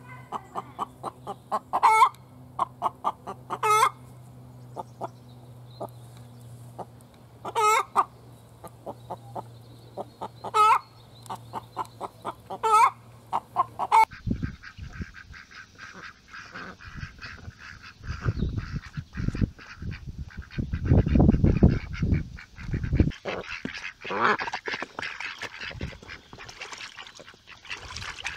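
A hen's egg-laying cackle: a run of quick clucks broken by five louder, drawn-out calls over about fourteen seconds. It then gives way to ducks quacking over low rumbling noise.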